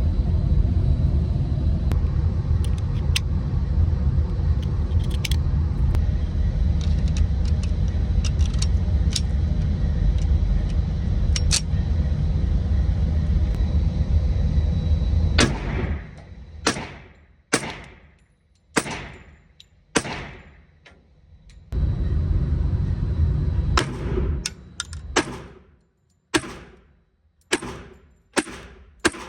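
A steady low rumble for about fifteen seconds, then .45 ACP pistol shots: five shots about a second apart, a brief return of the rumble, then a faster string of about eight more shots, each with a short echo tail.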